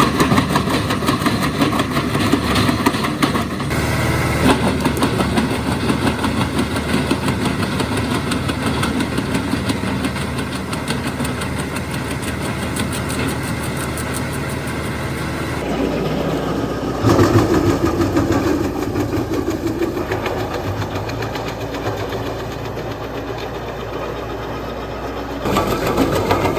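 John Deere tractor's diesel engine running steadily while it drives a PTO wood chipper. The sound changes abruptly several times.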